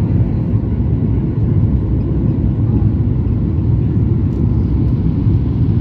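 Steady low rumble of a Boeing 737 MAX 8's CFM LEAP-1B engines and the airflow, heard inside the passenger cabin during the climb-out after takeoff.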